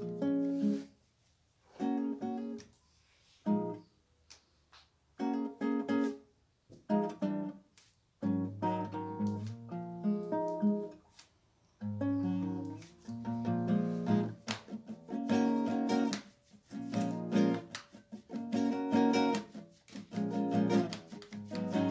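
Solo acoustic guitar music, plucked phrases broken by short pauses at first, then playing more continuously from about halfway.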